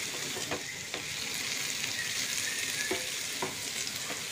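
Soya chunks and vegetables sizzling in a nonstick frying pan in oil and a splash of vegetable stock, stirred with a black spoon that scrapes and taps against the pan a few times.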